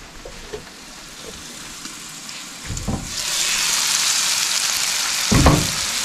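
Burger patties sizzling on a flat-top griddle. The sizzle is faint at first and turns loud about halfway in. A short low thump comes near the end.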